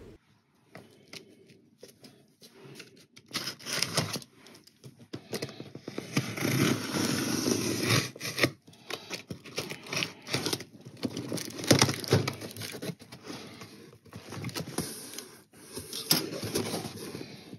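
Clear plastic packing tape on a cardboard box being split and the flaps pulled open: irregular scraping, crackling and tearing of tape and cardboard with sharp clicks, starting about three seconds in and busiest around six to eight seconds in.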